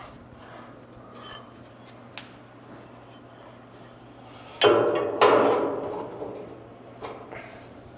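Two sharp metallic clanks about half a second apart, each ringing out briefly, from metal parts or tools being handled during work on a truck's hood hinges, over a low steady hum.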